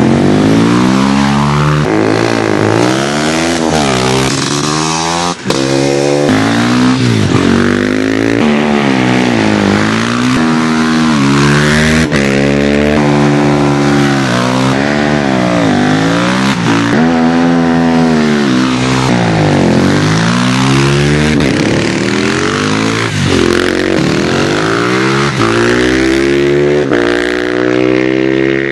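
Supermoto-style motorcycle engines revving hard as the bikes accelerate up the hill, over and over. The pitch climbs, drops at each gear change or lift off the throttle, and climbs again. A momentary break comes about five seconds in.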